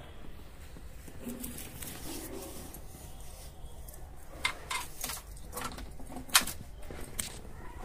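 Handling noise from a plastic toy backhoe on a toy truck's plastic bed: short sharp clicks and knocks, about six in the second half, one louder than the rest, over a faint steady background.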